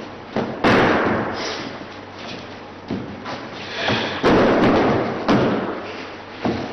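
Heavy thuds from a hand-to-hand pistol-disarm drill: bodies colliding and feet landing on a wooden gym floor. About five sudden thuds come a second or two apart, the loudest about half a second in and about four seconds in, each trailing off in the echo of a large hall.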